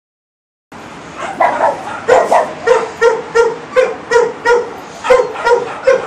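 A dog barking repeatedly and loudly in a steady run of sharp barks, nearly three a second, starting just under a second in.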